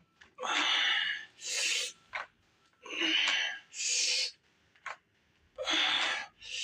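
A man breathing hard in rhythm with hammer-curl reps: three paired breaths about every two and a half seconds, each pair a fuller blast of breath followed by a sharper, hissier one.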